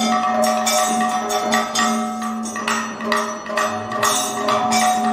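Kathakali accompaniment: a chengila gong and elathalam cymbals struck in a steady beat, about two to three strikes a second, each stroke ringing on over a steady drone. A few maddalam drum strokes come in near the end.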